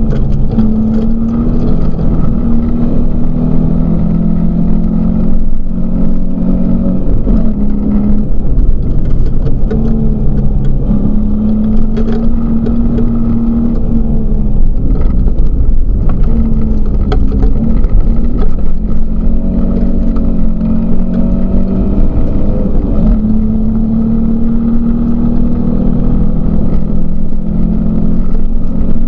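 Volvo 244 rally car's four-cylinder engine, heard from inside the cabin, driven hard on a gravel stage: its note climbs and drops again and again as the driver shifts and lifts, over a steady road rumble, with a few sharp knocks partway through.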